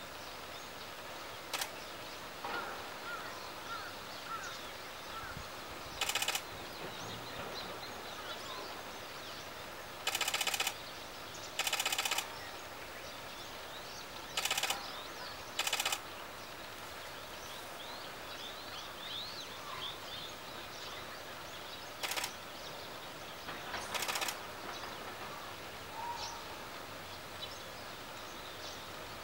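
Birds chirping over a steady outdoor background, broken by several short, loud rattling bursts of about half a second to a second each, spread through the stretch.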